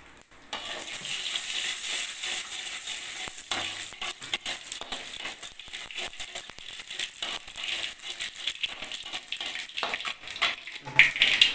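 Mustard seeds and urad dal crackling and popping in hot oil in a steel kadai for a tempering, stirred with a metal perforated ladle. The sizzling grows suddenly louder near the end.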